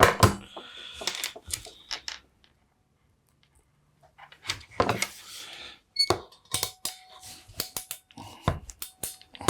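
Small sharp clicks, snips and scrapes of hand tools and wire being worked at a bench, in irregular bursts with a pause of about two seconds in the middle.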